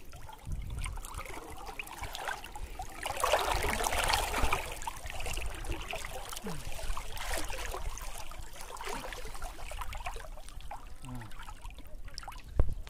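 Shallow river water splashing and sloshing as an arm and hand sweep through it, loudest a few seconds in, with a sharp knock near the end.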